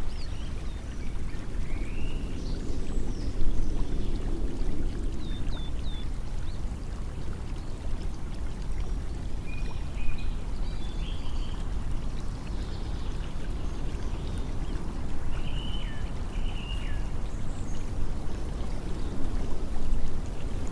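Running water, a steady rushing that swells and eases slowly, with small birds chirping now and then.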